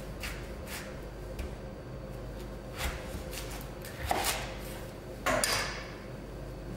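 Kitchen knife cutting a red cabbage in half on a plastic cutting board: several short noisy strokes as the blade works through the head, the loudest about four and five and a half seconds in, over a steady low hum.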